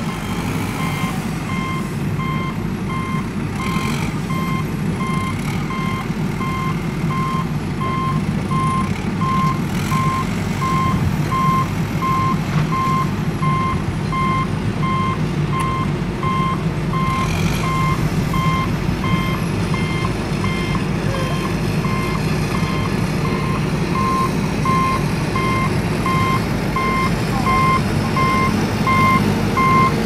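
Truck reversing alarm beeping at a steady, even rate over a continuous low engine rumble.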